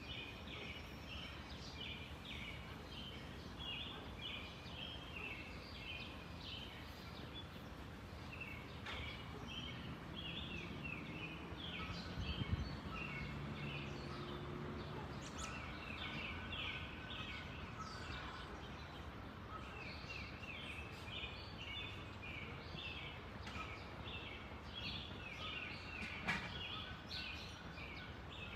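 Small birds chirping in quick, repeated short notes almost without pause, over a low steady rumble. A brief low thump comes a little before halfway, and a sharp click near the end.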